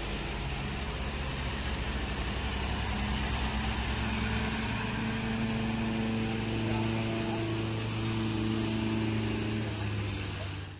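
Large intercity coach's diesel engine running as the bus passes and pulls away, a steady low drone that grows louder about three seconds in and holds until near the end, over road and traffic noise.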